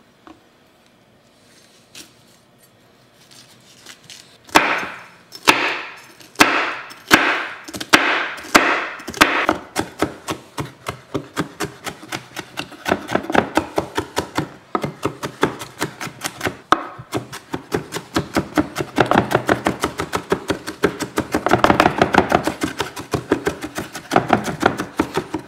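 Chef's knife chopping a jalapeño on a wooden cutting board: a few slow, separate cuts starting about four seconds in, then quick steady chopping of several strokes a second as the pepper is diced finely.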